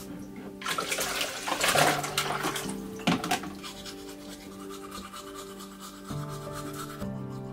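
Water poured from a plastic ladle into a hanging hand-washstand, a splashing pour of about two seconds near the start, over background music.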